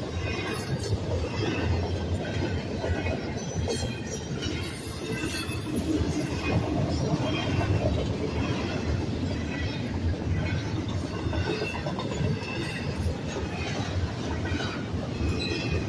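Double-stack container cars of a freight train rolling steadily past, with a continuous rumble of steel wheels on rail. Short high metallic tones come and go above the rumble.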